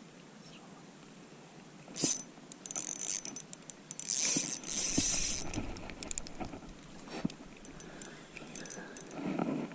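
A hooked pike being landed: irregular splashing, loudest about halfway through, with scattered rattling clicks of tackle.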